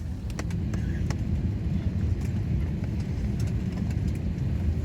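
Steady low rumble of an Airbus A321 airliner cabin, with a few faint clicks and knocks scattered through it.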